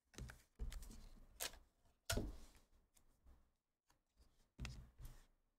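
Trading cards being handled by hand: a few soft clicks, taps and slides as a card is moved and set down.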